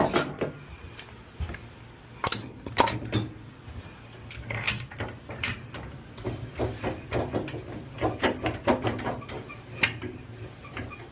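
Irregular metal clanks and clicks as a wheel is set and centered on a tire-changer machine, over a steady low hum.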